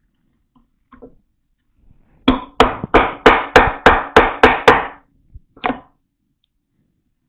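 Mallet striking a bédane (mortise chisel) chopping into wood while a blind mortise is cut by hand: a quick run of about nine sharp blows over two and a half seconds, then one more after a short pause.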